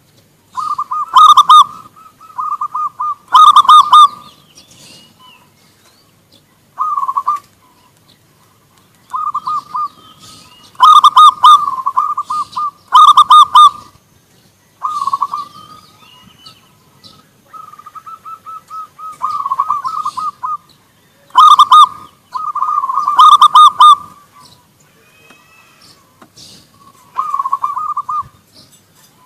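Zebra doves (perkutut) cooing and answering one another. Phrase after phrase of rapid, trilled coo notes comes in bursts of one to three seconds with short pauses between, and some phrases are very loud.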